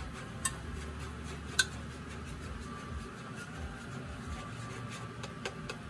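Kitchen utensils clinking against cookware: a few separate sharp clinks, the loudest about a second and a half in, over a steady low hum.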